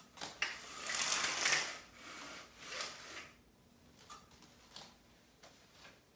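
Brief rustling and rubbing: one longer scrape about a second in and a shorter one a little later, followed by a few faint soft clicks.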